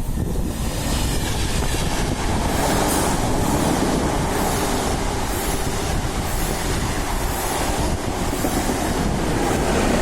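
A train running past the platform, with a steady rolling rumble and a rhythmic clatter of wheels over the rail joints.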